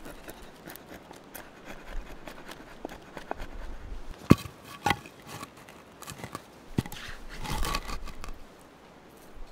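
Split firewood and kindling being handled: light knocks of wood on wood with scraping and crunching on snow, and a couple of sharper clacks about four and five seconds in.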